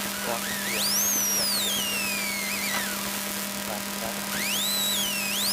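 Rally car engine heard from inside the cabin, revving up hard under acceleration, then falling away for about two seconds as the driver lifts, and climbing again near the end. A steady low hum runs underneath.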